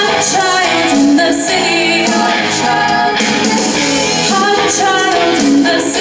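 A live band playing a pop-rock song: a female lead vocal over drums, guitars and keyboard, amplified through the PA.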